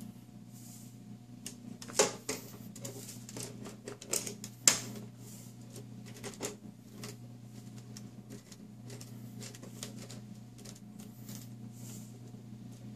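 Irregular clicks and taps of a small screwdriver and hard plastic parts as screws are driven into the bumper of a plastic RC truck model, with two louder knocks about two seconds and about five seconds in.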